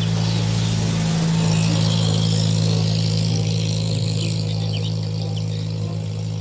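A motor vehicle engine running, growing louder about a second in and then slowly fading, as of a vehicle passing by, over a steady low hum.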